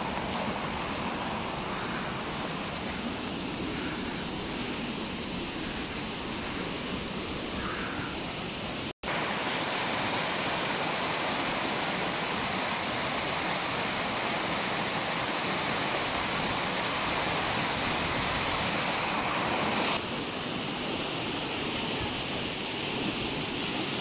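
Steady rushing of water falling over a small waterfall. It cuts out for an instant about nine seconds in and comes back slightly louder and hissier, then changes again at about twenty seconds.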